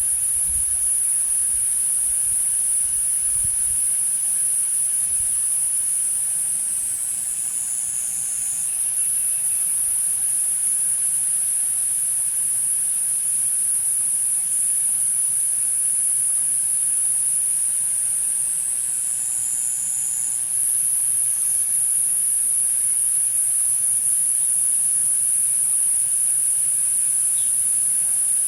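A chorus of cicadas keeps up a loud, steady, very high-pitched drone. Twice the pitch briefly sags lower for a second or so, about a quarter of the way in and again about two-thirds in.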